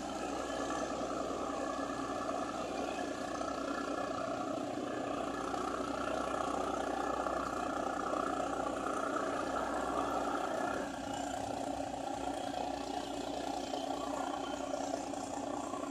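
Passenger ferry's engines running steadily as the vessel manoeuvres away from the harbour, a constant mid-pitched drone that drops a little about eleven seconds in.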